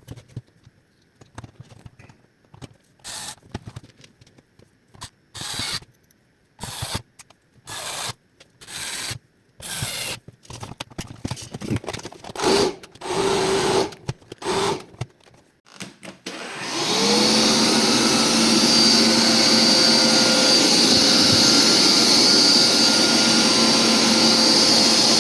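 A series of short bursts of noise. Then, about two-thirds of the way in, a Philips cordless upright vacuum cleaner switches on, its motor spins up and it runs steadily and loudly.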